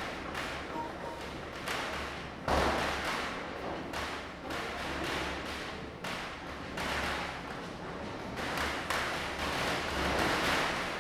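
Diwali firecrackers bursting in the distance: irregular bangs and pops over a continuous rumbling wash, with one louder bang about two and a half seconds in.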